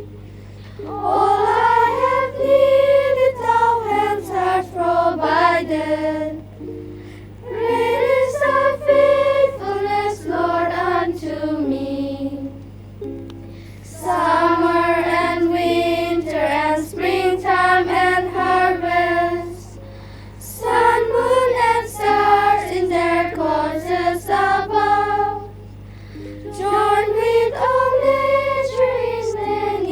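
A song sung by high voices, in repeated phrases of a few seconds with short breaks between them, over a steady low hum.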